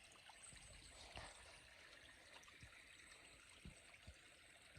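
Faint trickle of a small freshwater spring running over bedrock, with a few soft knocks near the middle and end.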